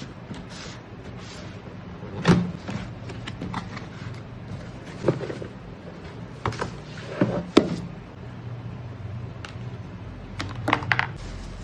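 Handling of an electric kettle and its packaging during unboxing: scattered knocks, clicks and rustles, the loudest about two seconds in, around five and seven seconds, and a cluster near the end, over a low steady hum.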